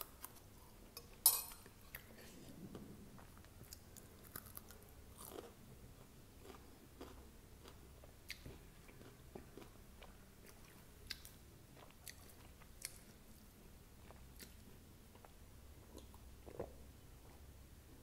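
Close-miked chewing of a mouthful of poha, with soft, scattered mouth clicks. A single sharp click comes about a second in.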